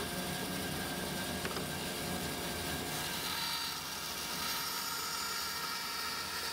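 Band saw running, its blade cutting through plywood to slice off small square blocks, with a steady, even sound.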